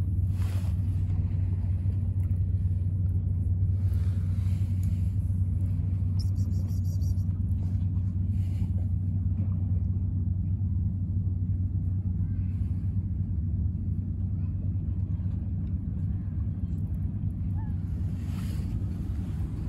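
A domestic cat purring steadily while being stroked: a continuous low rumble that holds level throughout.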